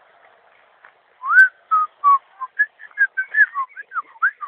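A person whistling a tune: a run of short, clear notes that glide up and down, about three a second, starting about a second in, the first note the loudest.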